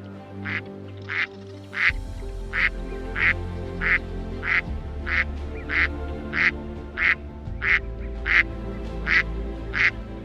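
Duck quacking over and over in an even rhythm, about fifteen short quacks, one every two-thirds of a second, over background music.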